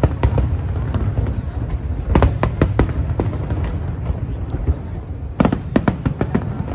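Aerial fireworks display: a continuous low rumble of shell bursts, with clusters of sharp cracks and crackles about two seconds in and again near the end.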